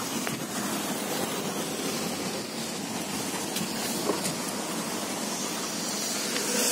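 Steady car noise heard from inside a slowly moving car: engine running and tyres rolling on a wet road.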